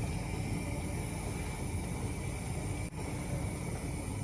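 Steady background hiss and hum, with no distinct events and a brief dropout about three seconds in.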